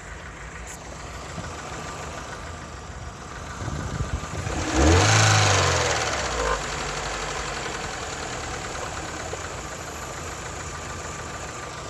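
Car engine idling with a knock, revved once about five seconds in, rising and falling back to idle.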